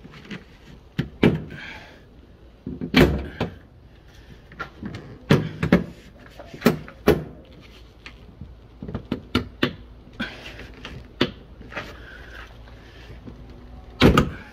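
Hyundai Kona liftgate's plastic inner trim panel being worked by hand: irregular sharp clicks and knocks as the panel and its clips are pressed and pulled, the loudest knocks about three seconds in and near the end.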